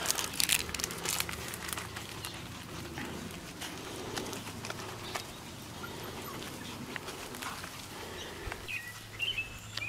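Outdoor background with a string of clicks and rustles in the first two seconds, then a bird chirping a few short, high notes near the end.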